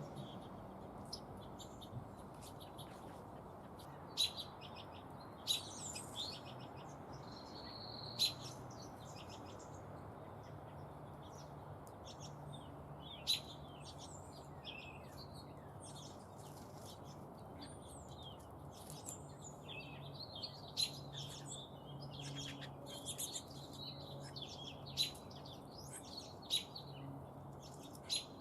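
Small birds chirping and calling on and off, many short high notes and quick rising and falling chirps, with now and then a sharp louder note. A faint steady low hum runs underneath.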